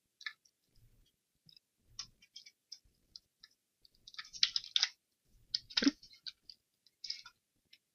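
Faint scattered clicks of a computer keyboard and mouse, with a denser run of keystrokes about four seconds in and another about a second later.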